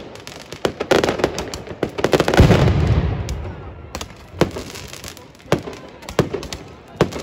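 Fireworks going off: a string of sharp bangs and pops from bursting shells, with one heavy, deep boom about two and a half seconds in that dies away over about a second.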